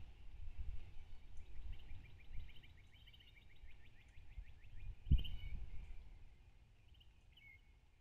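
A small songbird's rapid trill, a quick run of high notes lasting about three seconds, over low rumbling, with a dull thump about five seconds in and a few more chirps near the end.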